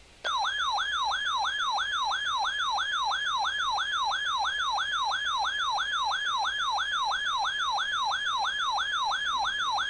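Weather alert radio's built-in siren alarm, a rapid warbling tone at about three sweeps a second that starts suddenly. It signals a received warning alert.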